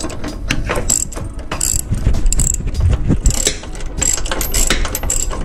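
Socket ratchet clicking in quick runs of strokes as a large engine-mount bolt, just broken loose, is backed out.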